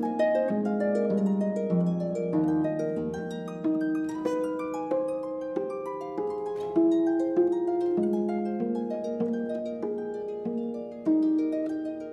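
Solo concert pedal harp played by hand: a continuous run of plucked notes, a melody over lower accompanying notes, each note ringing on as it fades.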